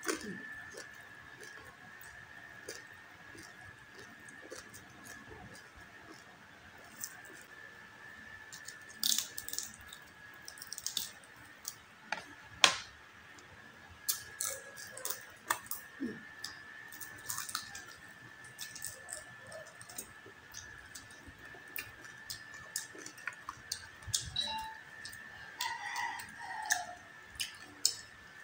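Close-miked chewing and biting of crispy deep-fried pork knuckle skin: sharp crunches and crackles at irregular intervals, the loudest a little under halfway through. A faint steady high tone runs underneath.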